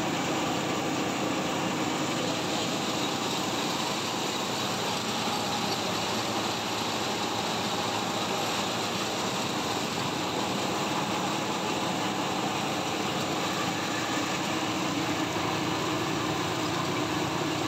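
Rice hulling machine running steadily as it mills paddy rice, a constant mechanical drone with a steady hum.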